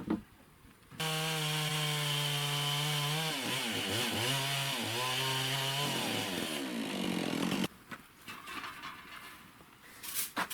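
Two-stroke chainsaw running at high speed, its pitch dipping and recovering several times midway as the load changes. It starts abruptly about a second in and stops suddenly near the end.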